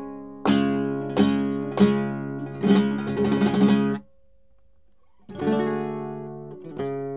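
Background music of an acoustic guitar strumming chords, stopping short about four seconds in and starting again after about a second.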